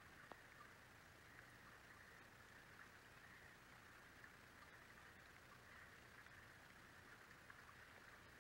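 Near silence: a faint, steady hiss with a few tiny ticks.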